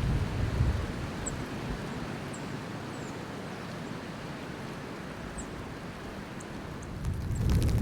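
Blizzard wind blowing steadily, buffeting the microphone with low rumbling gusts at the start and again near the end. A few faint, very short high chip notes of small birds come through.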